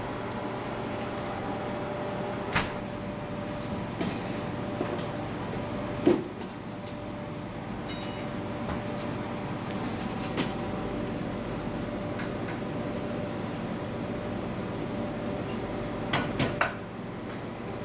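Steady machine hum with a few scattered knocks and clicks, the loudest about six seconds in, and three quick clicks in a row near the end.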